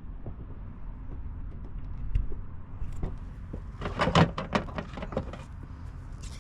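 Handling noise from an LED light strip being worked into a camper's front light channel: a knock about two seconds in, then a quick run of scraping and clicking sounds about four seconds in, over a steady low rumble.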